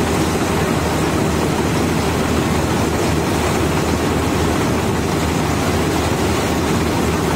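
Combine harvester running steadily while its unloading auger pours paddy grain into a tractor trolley: a loud, even mechanical drone that does not change.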